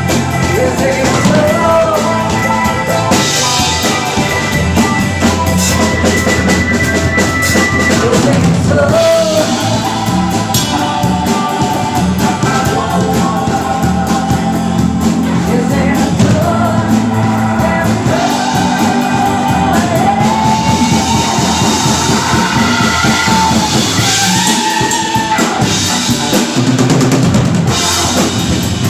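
Live band music: a drum kit playing a steady beat under a singer's wordless ad-lib vocal lines that slide up and down.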